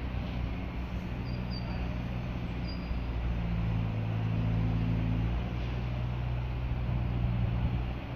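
Heavy fire truck's diesel engine running steadily. Its note rises a little and gets louder around the middle, then settles back.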